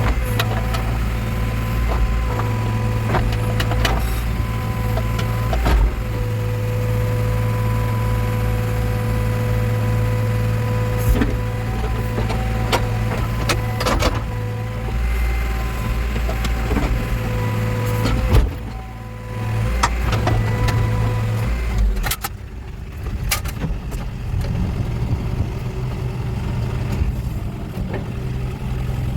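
Backhoe loader's diesel engine running under load, with a steady whine and several sharp clanks from the working machine. The engine eases off briefly about two-thirds of the way in, then runs lower toward the end.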